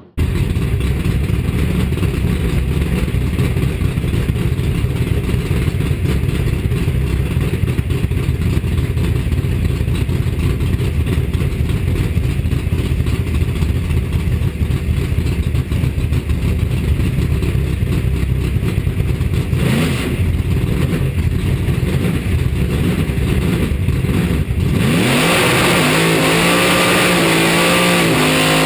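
Alcohol-burning 532 cubic-inch big-block Chevrolet V8 in a 1940 Willys drag car: a long stretch of loud, steady engine and rushing noise, then, about 25 seconds in, the engine revving up and down in pitch at the starting line.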